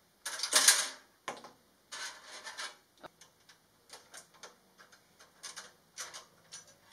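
Clicks, taps and rustling from hands working cables and parts inside a PC case, with a louder burst of rustling just after the start, then scattered short clicks.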